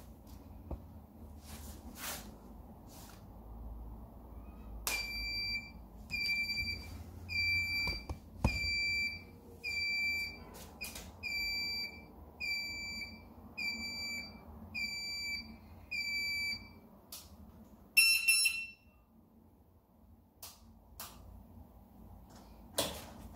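Electric kick scooter's turn-signal beeper sounding a steady high tone about once a second, a dozen times in a row while the rear indicator blinks. Soon after it stops, one shorter, louder beep of several tones, with a few faint clicks around it.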